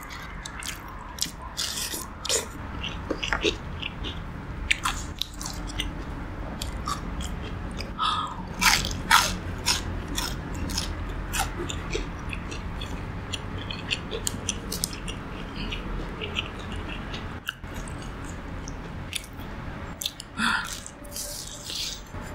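Close-miked crunching and chewing of crispy fried food, with many sharp crackles as it is bitten, loudest about a third of the way in.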